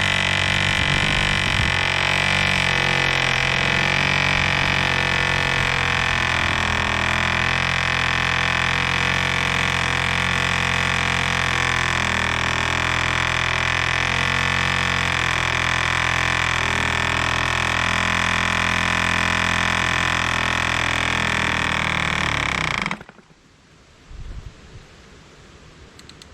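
1947 Drone diesel model airplane engine running steadily at a constant pitch while spinning a large propeller. It stops abruptly near the end.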